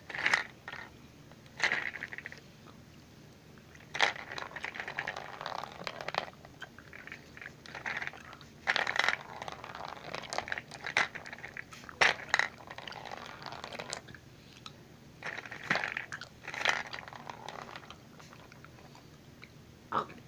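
Gumballs rolling and clattering down the plastic spiral chute of a toy gumball machine into its tray, in several separate runs of clicks and rattles with quieter gaps between.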